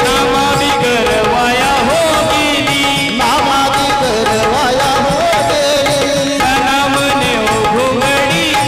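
A man singing a Marathi folk song through a microphone in an ornamented, gliding melody, over a steady harmonium drone with hand-drum percussion.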